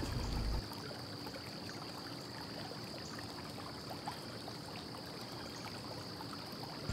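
Steady background hiss with a thin, high, steady whine and a few faint ticks.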